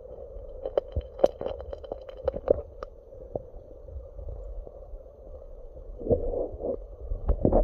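Muffled underwater sound picked up by a phone microphone submerged in a water barrel: a steady hum with scattered clicks and knocks from handling. Heavier low sloshing thumps come about six seconds in.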